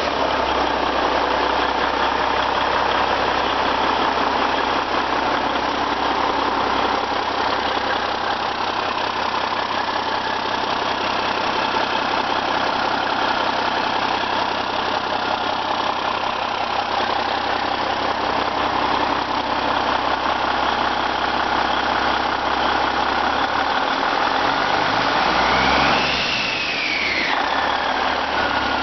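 Cummins N14 Celect Plus inline-six turbodiesel idling steadily on an engine test stand. Near the end a whine rises and falls.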